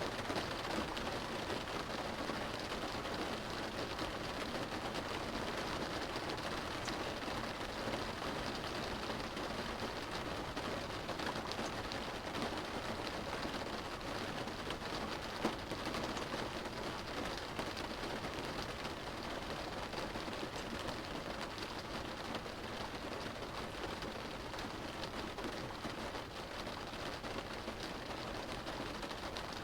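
Steady rain drumming on a car's roof and windows, heard from inside the car as a dense patter of drops, with one slightly louder drop about fifteen seconds in.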